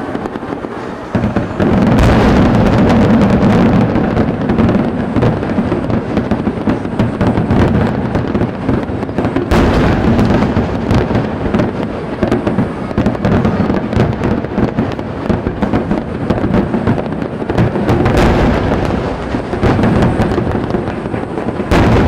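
A dense barrage of aerial fireworks: rapid overlapping bangs and crackles with heavy booms about 2 s in, near the middle, and twice near the end, over a continuous rumbling echo.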